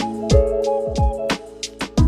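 Background music with a steady beat: kick drums that slide down in pitch, hi-hat strokes and sustained chords, thinning out briefly about a second and a half in.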